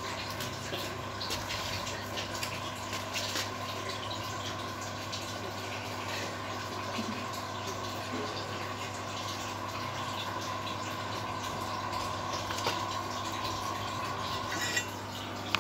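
Aquarium aeration bubbling steadily underwater, with a steady low hum underneath.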